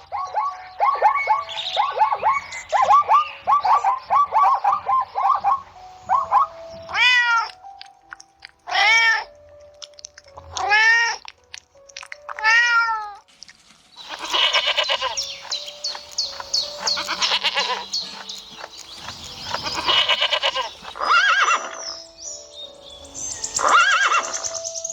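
A sequence of animal calls: rapid, short chattering calls for the first few seconds, then four drawn-out calls that rise and fall in pitch, about two seconds apart, then a denser run of overlapping calls.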